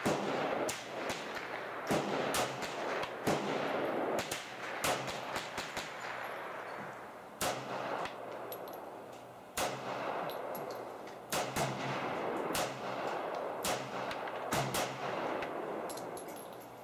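Pistol gunfire: a Colt 1911 Series 70 in .45 ACP firing a magazine, mixed with other shooters' gunfire, sharp shots coming irregularly every half second to a second, each with an echoing tail.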